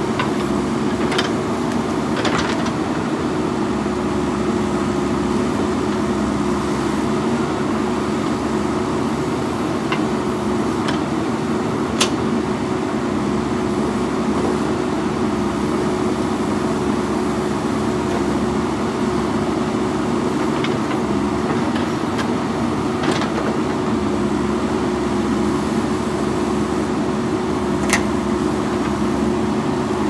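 JCB backhoe loader's diesel engine running steadily under hydraulic load as the backhoe arm digs, a constant hum, with a few sharp knocks scattered through it.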